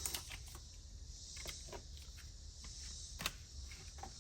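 Small plastic accessory pieces and packaging being handled: scattered light clicks and taps over a faint steady hiss, with a sharper click a little past three seconds in.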